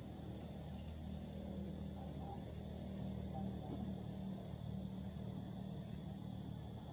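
A steady low engine hum with no break, and a faint steady high hiss above it.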